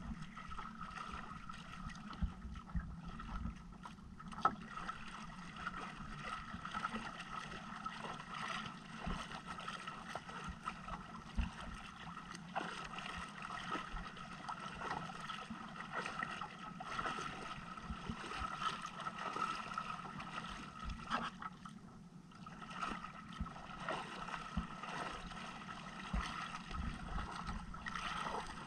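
Water lapping and sloshing against the hull of a small boat at sea, with small knocks of the hull and gear and wind on the microphone, over a steady faint hum.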